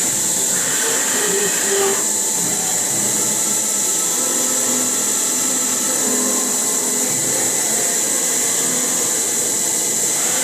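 CNC milling machine cutting metal: a steady high-pitched whine over an even hiss, with no change in speed.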